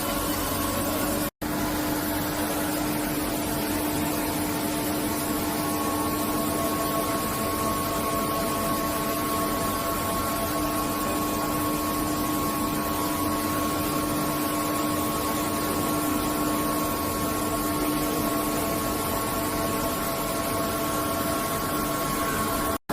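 SNK RB-200F CNC bridge mill running steadily: an even machine hum with a few held whining tones, which cuts out for an instant about a second in and again near the end.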